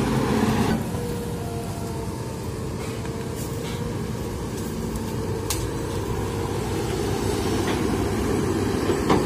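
An excavator's diesel engine runs steadily while its hydraulic arm digs soil with the bucket, with a faint steady whine and a few short sharp clicks. The level drops a little under a second in.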